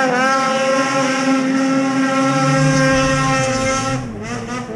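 Two-stroke mountain snowmobile engine revved up and held at high, steady revs under hard throttle as the sled climbs a steep snow slope. The revs drop off about four seconds in.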